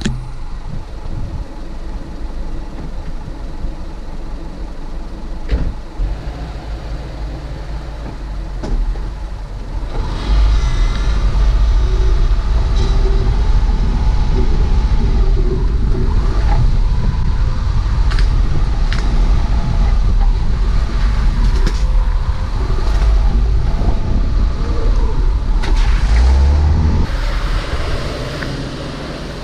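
A Subaru driving along a rough dirt track, heard from on board: a low rumble of engine and tyres, with scattered knocks and rattles over the bumps. The rumble grows louder about ten seconds in.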